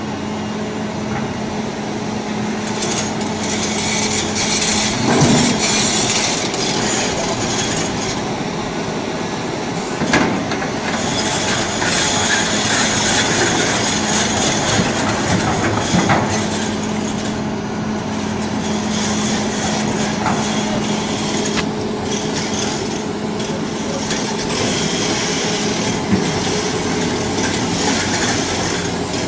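Tracked hydraulic excavator running under load as its bucket pushes a huge quarry stone block onto a dump truck's steel bed: a steady engine hum under a high grinding noise that swells and fades, with a few sharp knocks, the clearest about five, ten and sixteen seconds in.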